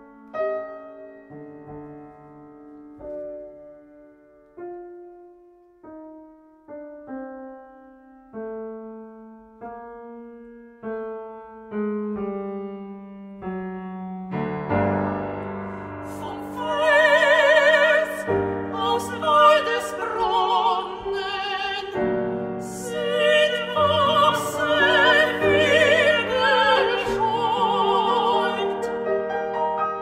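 Classical art-song duet for soprano, mezzo-soprano and piano. The piano plays alone in quiet, separate notes at first; about halfway through, the voices enter singing with vibrato over the piano, and the music grows louder.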